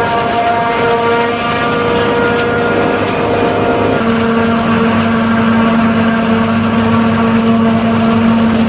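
New Holland FX48 forage harvester chopping standing maize, its machinery running with a loud, steady whining drone, with a tractor engine running alongside. The pitch of the drone shifts about four seconds in.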